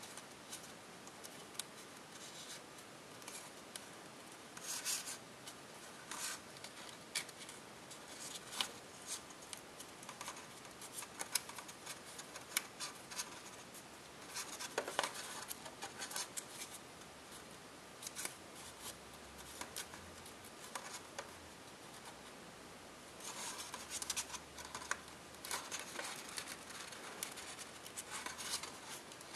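Copper tissue foil being folded and creased by hand, crinkling and crackling in short spells of crisp rustles and clicks, with quieter stretches between.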